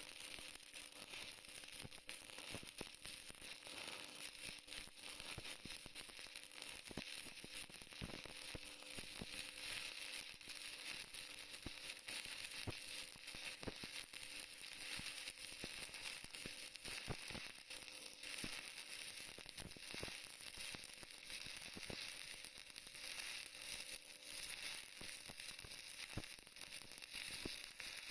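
Stick-welding arc burning a 6013 electrode, a steady frying sizzle broken by many small sharp crackles and pops.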